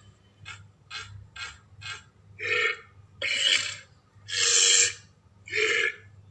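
Ankylosaurus creature sound effect: a run of short, rough vocal calls. Four faint, quick ones come in the first two seconds, then four louder, longer ones follow about a second apart.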